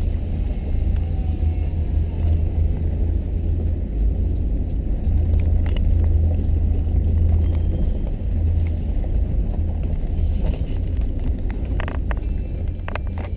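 Steady in-cabin road noise of a vehicle driving a dirt and gravel road: a strong low rumble of engine and tyres. A few sharp knocks come in the last few seconds.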